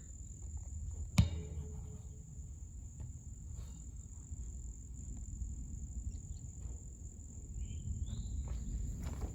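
Outdoor central air conditioner condensing units running with a steady low hum, under a continuous high-pitched cricket trill. One sharp click about a second in.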